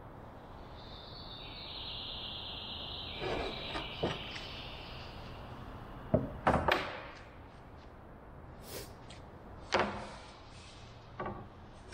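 A pen scratching a line onto plywood along a metal square, a high squeaky scrape lasting a couple of seconds. Then several sharp knocks and clatters as the square and the plywood floorboard are handled and shifted on a wooden workbench.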